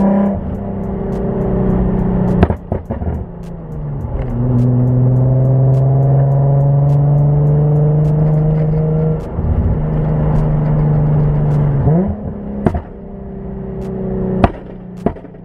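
E85-tuned Nissan 350Z's V6 engine and exhaust heard from inside the cabin while the car is being driven. The engine note drops about four seconds in and then holds steady, climbing slowly. It dips briefly near nine seconds and revs up sharply about twelve seconds in. A few sharp cracks come in between.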